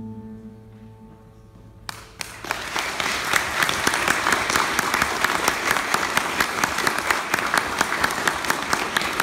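The last held note of a song fades away, then an audience breaks into applause about two seconds in, steady dense clapping that carries on.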